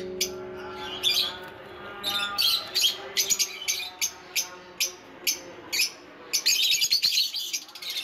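Lovebirds chirping in many short, sharp, irregular calls, thickest about six to seven seconds in.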